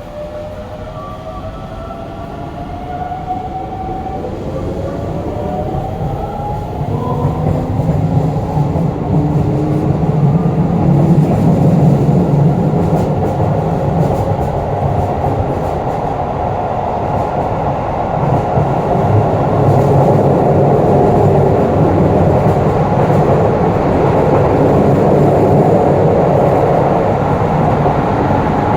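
Hokuso 7300-series electric train with a GTO-VVVF inverter, pulling away: the inverter's whine rises in pitch over the first several seconds as the train picks up speed. It then settles into a steady rumble of motors and wheels on rail, with rail-joint clicks.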